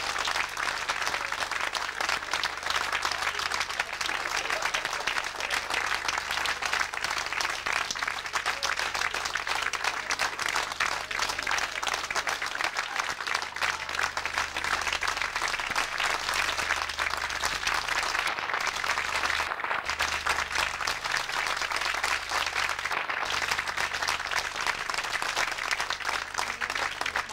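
Audience applauding in a long, steady round of clapping.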